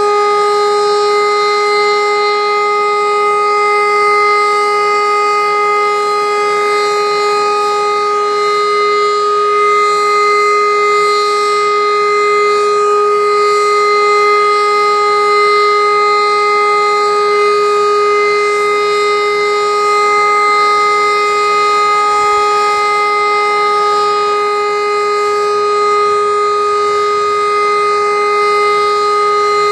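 E57 electromechanical civil-defence siren sounding the all-clear: one loud, steady tone held at a constant pitch, with no rise or fall.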